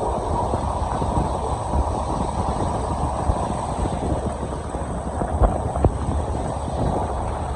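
Steady low rumble of a moving vehicle, with two short knocks about five and a half and six seconds in.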